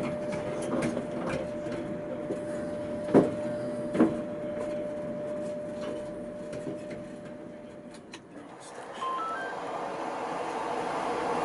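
Tatra K2P tram cab at the Celní stop: a steady electrical whine from the tram's equipment over a low rumble, with two sharp knocks about three and four seconds in. Near the end, after a dip, a few short rising beeps sound and open street noise with traffic rises.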